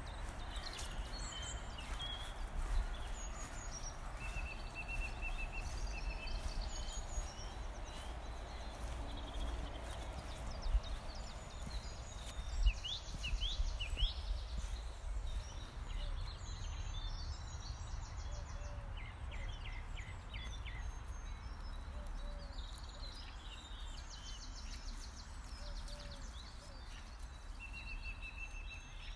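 Small birds chirping and singing in the trees, short calls and trills scattered throughout, over a steady low rumble.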